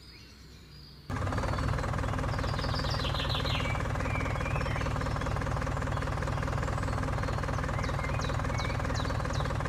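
Tractor engine running steadily. It cuts in abruptly about a second in.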